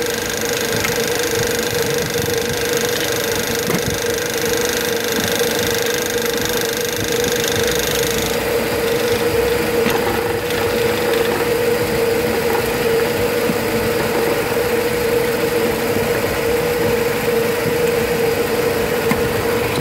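Nissan Frontier pickup engine idling steadily with a constant hum. The rattle from a loose 12 mm bolt is gone now that the bolt has been tightened.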